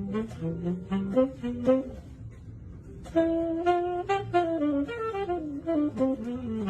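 Solo saxophone playing a jazzy melody with short notes stepping up and down, a brief pause about halfway, then a falling run of notes.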